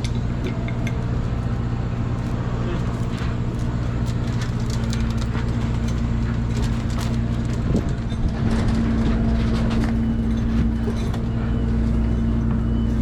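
Fishing boat's engine running steadily with a low drone, one of its tones growing stronger a little past halfway. Scattered short knocks and clanks of crab-trap gear on deck over it.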